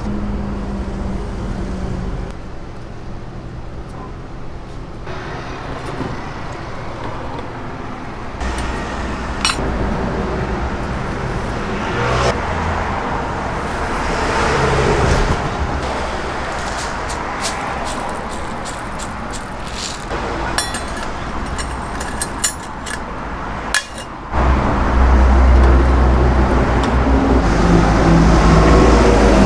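Road traffic noise runs steadily behind food-prep handling sounds: scattered sharp clicks, and dried seafood crinkling as it is pressed into a stainless mesh broth strainer. A plastic bag rustles near the end, and a louder low rumble sets in.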